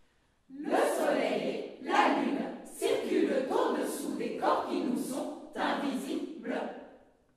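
Women's vocal ensemble performing unaccompanied, the voices together in a run of about seven short, breathy choral bursts, each under a second long. They begin about half a second in and stop shortly before the end.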